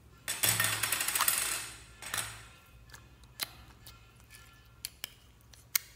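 A small plastic slime tub being opened: a loud rough rasp of plastic as the lid comes off, a shorter rasp a moment later, then a few sharp plastic clicks and taps.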